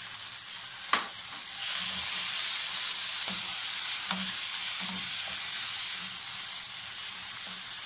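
Vegetables sizzling in hot olive oil in a frying pan as freshly added chopped tomatoes are stirred in with a wooden spoon. A sharp tap comes about a second in, then the sizzle grows louder, with soft knocks of the spoon against the pan.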